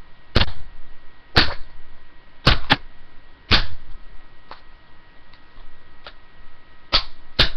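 Hammer striking the bottom of a plastic Dell computer mouse to break the casing open. The knocks are sharp and separate, about one a second for the first few seconds, then a pause with only faint taps, then two more blows near the end.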